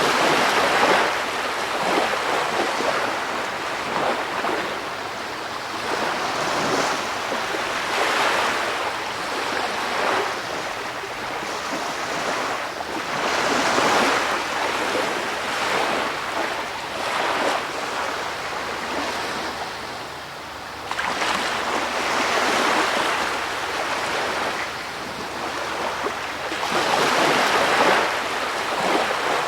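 Ocean surf: waves washing in and receding, swelling and falling every few seconds.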